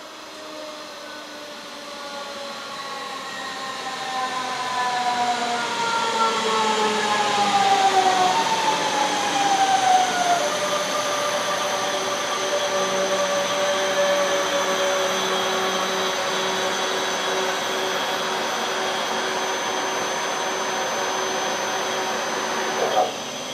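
A DB Regio class 425-family electric multiple unit braking into the platform. Its traction motors whine in several tones that fall steadily in pitch and grow louder. About ten seconds in, it comes to a stand and settles into a steady electrical hum with a high whistle from its auxiliary equipment, and there is a short knock near the end.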